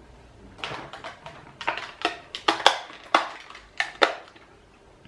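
A dozen or so sharp clicks and clacks of small plastic makeup packaging and lip products being handled and knocked together, bunched between about half a second and four seconds in.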